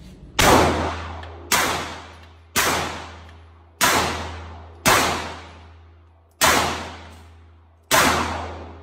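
Pistol shots at an indoor range: seven rounds fired one at a time, about one to one and a half seconds apart, each crack ringing off the range walls.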